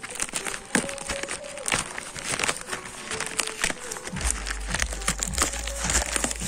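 Plastic wrapping and bubble wrap crinkling and tearing as they are pulled open by hand, with many quick irregular crackles.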